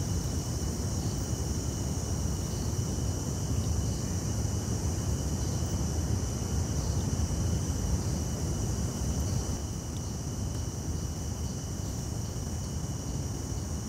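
Steady roar of a canister gas stove's burner heating a pot, with a steady high-pitched buzz of night insects over it. The roar eases a little about ten seconds in.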